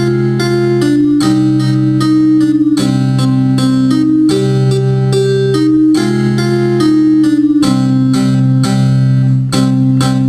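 Digital piano playing a simple beginner's piece: a slow right-hand melody of held notes, about one or two a second, over a steady repeated low left-hand note.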